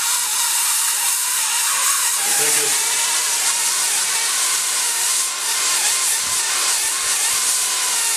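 Gas flame hissing steadily, a loud high rushing noise, as steel is heated for forging.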